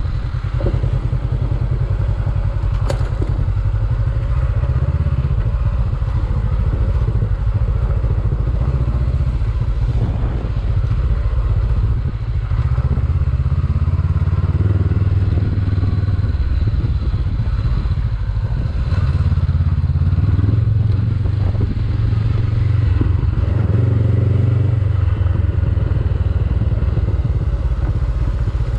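Honda CB500X's parallel-twin engine running steadily under load as the motorcycle climbs a rough dirt track. The engine note drops briefly twice near the middle, with scattered knocks and clatter from the bike over the rocky ground.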